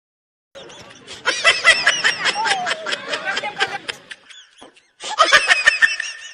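Laughter in quick pulses: a long run of laughing, then a second shorter burst about five seconds in.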